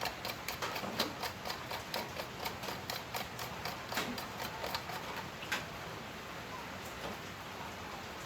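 A plastic lock nut is being screwed by hand onto the threaded body of a universal USB charger port, giving a quick run of light plastic clicks, about four a second. The clicks thin out and stop after about five and a half seconds.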